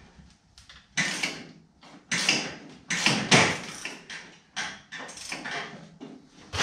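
A hand wrench working a tight nut and bolt on an old car's front end: a series of short bursts of metal clicking and scraping.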